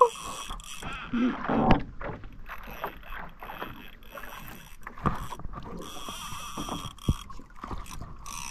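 Fishing reel being cranked against a hooked fish during a jigging fight, with irregular clicks and knocks from the reel and the boat. There is a louder patch about a second in and sharp single knocks about five and seven seconds in.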